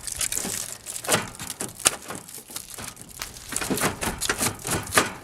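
Irregular clicks, taps and knocks of a plastic headlight assembly being handled and fitted, with some crinkling between them.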